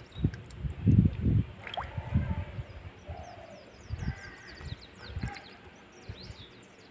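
Hands sloshing and splashing in a metal basin of water while washing and pulling apart fresh mushrooms, with irregular splashes, the loudest about a second in and others around two, four and five seconds.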